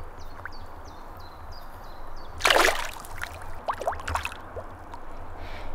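A hooked mullet splashing at the surface about two and a half seconds in, one loud short splash followed by a few smaller splashes and drips as it is drawn in. A repeated high chirp, about three a second, sounds over the first two seconds.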